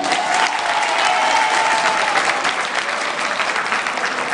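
Audience applauding, with a single long high call held over the clapping for about the first two seconds.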